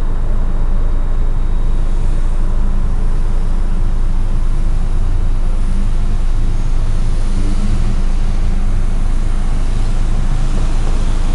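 Steady low rumble of idling and passing road vehicles, heard from inside a car.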